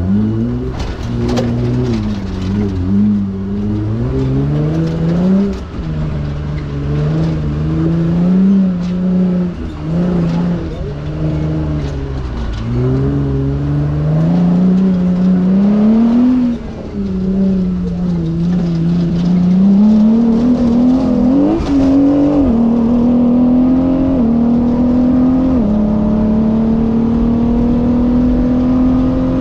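Off-road race vehicle's engine revving up and down over and over under load, with knocks and clatter in the first few seconds. Near the end it holds a steady, higher pitch.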